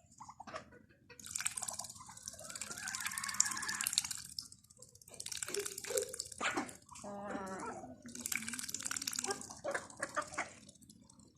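Water splashing and dripping in stretches of a few seconds, broken by short pauses, as ducks bathe and dabble in water.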